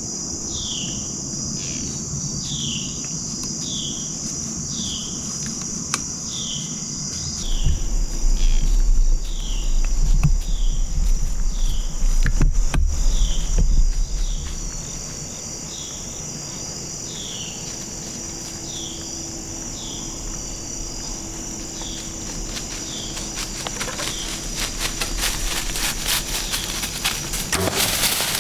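Insect chorus: a steady high trill of crickets, with a short falling chirp repeating about once a second. A low rumble comes in from about eight to fourteen seconds, and rustling crackles build toward the end.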